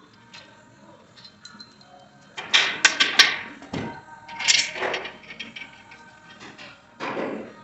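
Quiet background music with three bursts of knocking and clatter from engine assembly work; the loudest comes about two and a half to three and a half seconds in, with shorter ones near five seconds and near the end.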